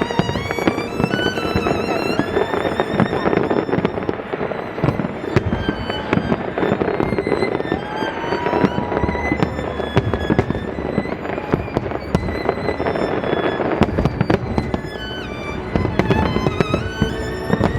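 Fireworks going off in rapid, overlapping bangs and crackles, with a classical violin piece playing over them in long, wavering notes.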